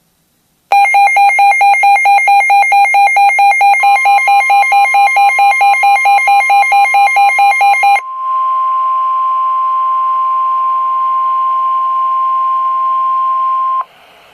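A weather radio receiver's alarm beeping rapidly, about five beeps a second, for some seven seconds. The steady 1050 Hz NOAA Weather Radio alert tone joins in under the beeps. Once the beeps stop, the alert tone plays alone over radio hiss and then cuts off suddenly, signalling an incoming warning.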